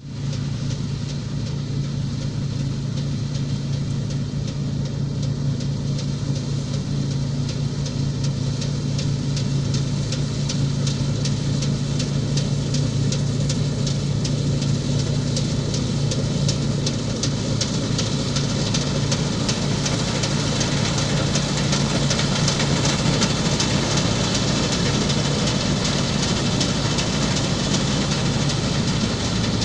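Laverda M305 combine harvester working through standing wheat: a steady engine drone with a fast, even mechanical clatter over it, growing louder as the machine comes closer.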